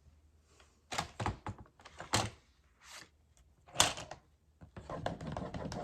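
Cardstock and paper being handled and slid together on a work table: a few sharp taps and clicks, the loudest about four seconds in, then paper rustling near the end as the pocket is worked into the album page.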